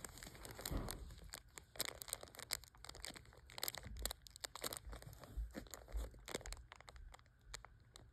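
Clear plastic bag crinkling in the fingers as it is handled, an irregular run of crackles.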